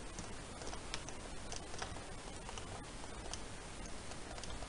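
Faint, irregular clicks of a computer mouse and keyboard being worked, several a second, over steady microphone hiss.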